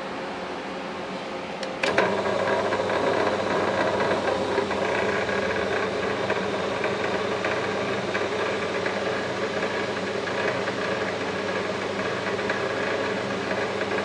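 Scrap wire stripping machine with a 1 HP electric motor running steadily with a hum and rattle. About two seconds in there is a sharp click and the running grows louder as a wire is fed through and stripped of its insulation.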